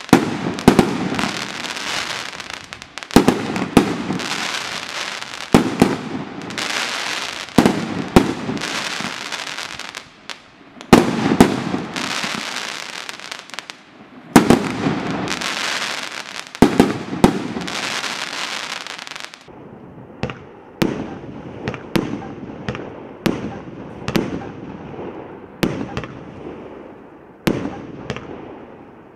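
1.3G firework barrage cakes firing. First the Primed Pyrotechnics Skybreaker launches a sharp shot every second or two, each followed by a spell of crackling from its bursts. About two-thirds of the way in, the Primed Pyrotechnics Water cake takes over with a steadier run of lighter shots about once a second.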